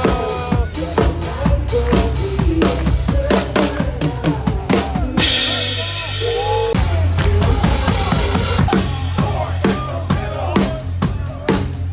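Music with a heavy, fast drum beat of kick, snare and rimshot hits. About five seconds in the drums drop out briefly under a hiss, then come back with heavy bass.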